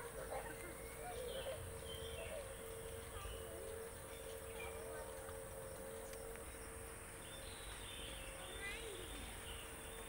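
Outdoor forest-edge ambience: a steady insect hiss and a low steady hum, with scattered short bird chirps and faint distant voices, the chirps coming more often near the end.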